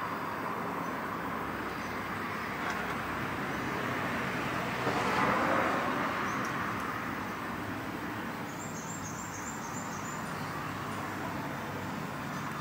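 Steady road traffic noise. A vehicle passes about five seconds in, swelling and then fading. A short run of faint high chirps comes near the end.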